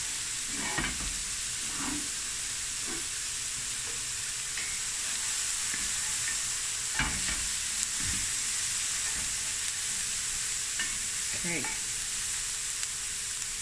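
Chopped onion, chili and garlic sizzling steadily in a little oil in a stainless steel pan, with a wooden spoon stirring and scraping through them now and then.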